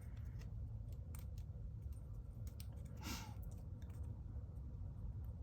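Scattered light clicks and a short scrape about three seconds in: a piston and small parts being handled and fitted into a 4L60E transmission, over a steady low hum.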